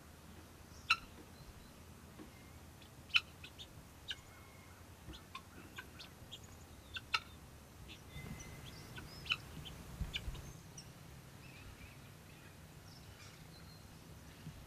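Pearl gray and lavender guinea fowl giving short, sharp calls, one at a time and scattered irregularly, about a dozen in all.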